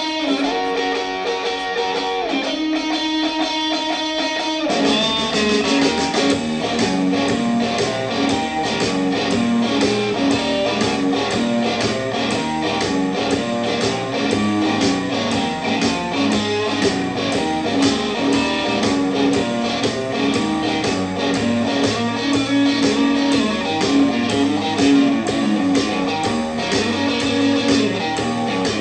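Guitar playing: a few held, ringing chords, then about five seconds in a steady strummed rhythm starts and keeps going.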